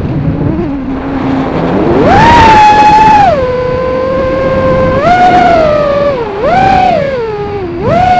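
Brushless motors and propellers of an X210 FPV racing quadcopter whining, heard from its onboard camera. The pitch sits low at first, rises sharply about two seconds in, then falls and rises again several times as the throttle is worked.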